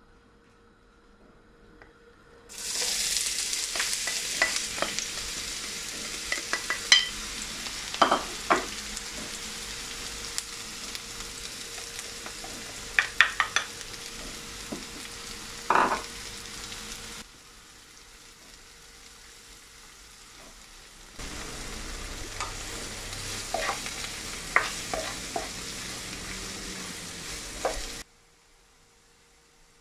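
Sliced onions and green chillies sizzling in hot oil in a non-stick wok, with the clicks and scrapes of a spatula stirring them. The sizzle starts suddenly as the onions go in, about two and a half seconds in, drops away for a few seconds past the middle, comes back, and cuts off near the end.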